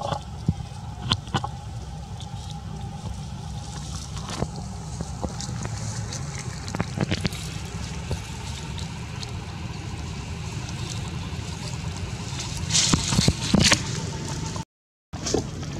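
Long-tailed macaque eating ripe mango: wet chewing and slurping with scattered small clicks, and a louder cluster of bites near the end, over a steady low rumble.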